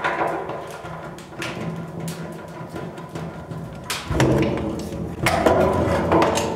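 White PVC drain pipe being worked loose and pulled off the stainless steel sink's drain tailpiece: plastic rubbing and scraping, with a few sharp knocks, busiest in the second half.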